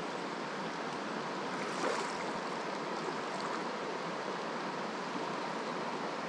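Small mountain trout stream rushing steadily.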